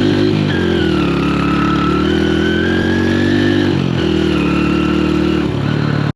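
Honda Win motorcycle's small single-cylinder four-stroke engine running under load on a rough track, its revs stepping up and down several times.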